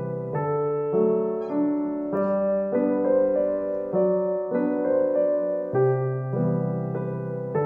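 Background piano music, with notes and chords struck about twice a second.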